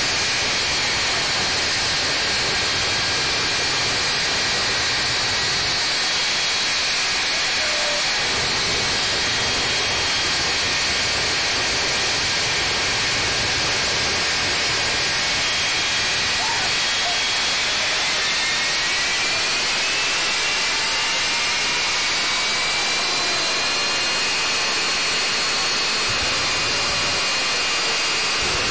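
Jet engines of jet-powered funny cars running with afterburners lit: a very loud, steady hiss with high turbine whines over it. About two-thirds of the way through, one whine rises in pitch as an engine spools up.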